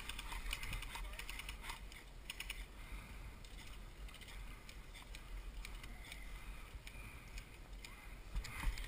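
Faint scattered clicks and rustles, some in quick clusters in the first few seconds, over a low steady rumble.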